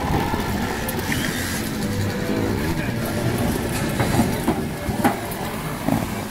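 Child's trials motorcycle engine revving up and down as the bike climbs onto a car roof and rides off it, with a few sharp knocks as the wheels strike the car and ramp.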